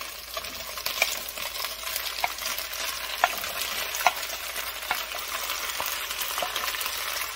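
Oil sizzling in a hot pot of pasta as sautéed vegetables are scraped into it from a plate with a wooden spatula, with scattered light knocks of the spatula about once a second.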